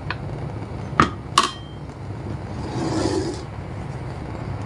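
A plastic ladle knocking twice against the rim of a clay cooking pot, two sharp taps close together about a second in, followed by a short soft scrape. A steady low hum runs underneath.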